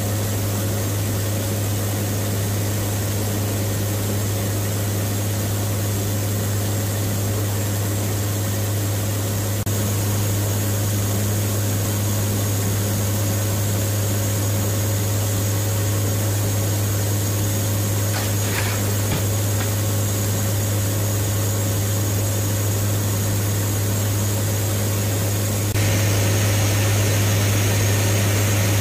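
Steady engine and propeller drone inside the cabin of a WC-130J turboprop aircraft, a constant low hum under an even roar. The level steps up slightly about ten seconds in and again near the end.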